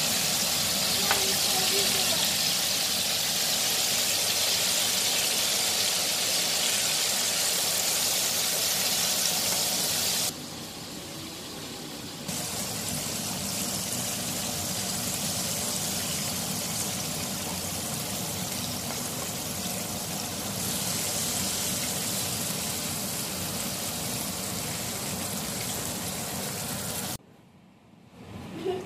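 Battered chicken deep-frying in a pan of hot oil, a steady sizzle. It drops back for a couple of seconds about ten seconds in and stops near the end.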